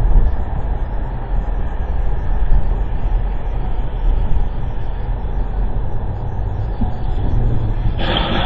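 Steady low rumble of a car's engine and tyres on the road, heard from inside the moving car. Near the end the noise turns suddenly brighter and hissier.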